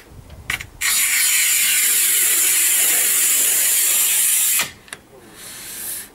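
Scoring wheel of a Fixtool rail-system tile cutter run along a 6 mm matte porcelain slab: a loud, steady scratching hiss lasting about four seconds, with a click as it starts and as it stops, then a fainter stretch near the end. The cutter's carriage runs stiffly.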